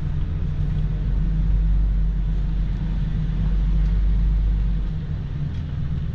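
Class C motorhome's engine and road rumble heard from inside the cab as it drives. The rumble is low and steady, and its deepest part drops away about five seconds in.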